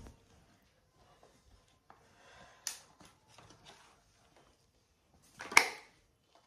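Quiet clicks and rustles of makeup items being handled, with one sharper click about two and a half seconds in and a louder, short rustle about a second before the end.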